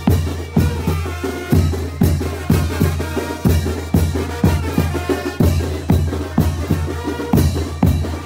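A Mexican banda plays a chinelo brinco dance tune, with a steady drum beat about twice a second under the held notes of the band.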